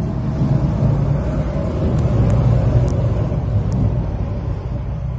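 Low rumbling noise that swells through the middle and eases off near the end, with a few faint high ticks in between.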